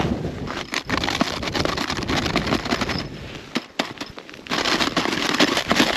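Crisp crunching of snow underfoot with clothing rustling close to a body-worn microphone, made of many small sharp crackles. It drops away for about a second near the middle, then comes back loudly.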